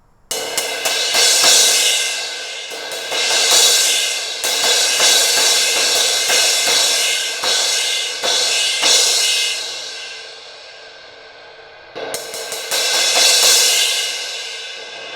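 Sabian 18-inch HHX Evolution crash cymbal struck repeatedly, ringing in a bright shimmering wash. It is left to fade, then struck again near the end. The crack has been cut out of the cymbal, so it rings without the raspiness the crack gave it.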